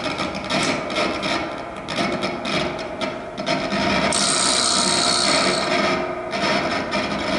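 Live experimental band of electric guitar, alto saxophone and drums in a noisy, textural improvised passage: rasping, scraping sounds over a steady drone. A bright hiss comes in about four seconds in and lasts about a second and a half.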